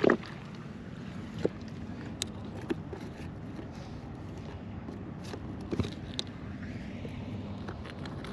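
A splash right at the start as a fish stringer drops into the water, then scattered light knocks and clicks of shoes and stones on rock riprap over a steady outdoor hiss.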